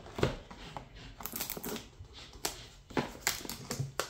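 Packaging of a boxed impact socket set being handled and opened: irregular rustling with a string of sharp clicks and light knocks.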